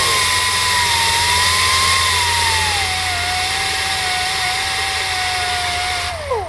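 Hand-held pneumatic drill running steadily against the aircraft's aluminium skin, a high whine over loud air hiss. The whine settles a little lower about three seconds in, then the tool is let off and spins down quickly near the end.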